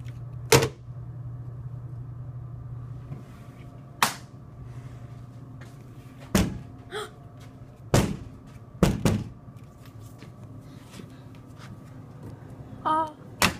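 Half a dozen sharp knocks and thumps at irregular intervals, one of them a quick double knock, over a low steady hum that fades out a few seconds in.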